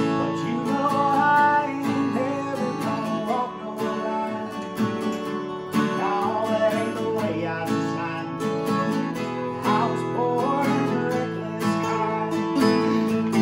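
Two acoustic guitars, a small-bodied LG-style and a slope-shouldered jumbo in flamed mahogany, playing a song together with strummed chords and picked notes.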